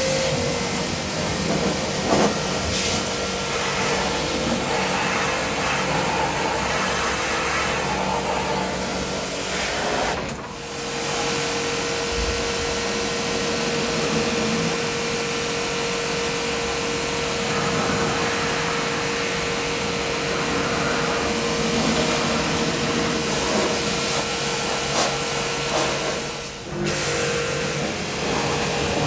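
A small motor running steadily with a whirring hum, like a cleaning machine, briefly dropping away twice.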